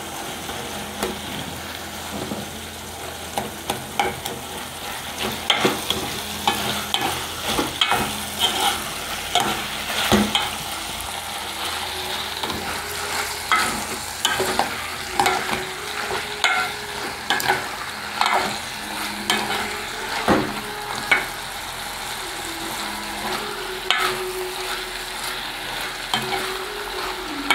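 A serving spoon stirring and scraping diced chayote and vegetables around a metal pot, in irregular strokes, over a steady sizzle of frying.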